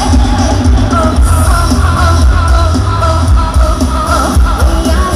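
Amplified live music from a Thai rot hae mobile sound-truck band, heard from about 350 metres away: a heavy bass and a steady drum beat under a wavering melody line.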